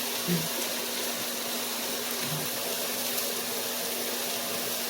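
Chicken tenderloins frying in oil in a skillet: a steady sizzling hiss.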